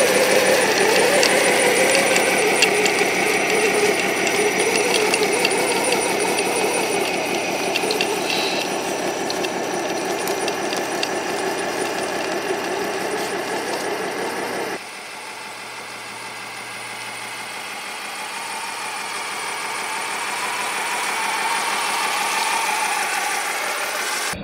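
Custom 1/14-scale electric RC semi truck with six tracks, running under load: its four brushed motors and two transmissions whine with a rattle from the drivetrain and tracks, the pitch wavering with the throttle. About halfway through the sound changes abruptly to a quieter run whose pitch slowly rises.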